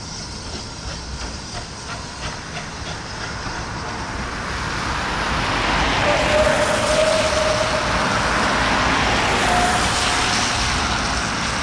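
Steam train hauled by GWR 0-4-2 tank engine No. 1450 drawing closer, growing louder over the first half. A run of clicks comes at first, and two brief squeals come later.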